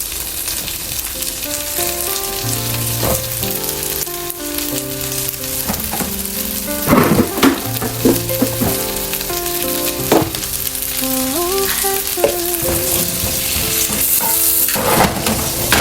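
Hot oil sizzling steadily in a frying pan, with a few sharp knocks of a utensil against the pan while stirring.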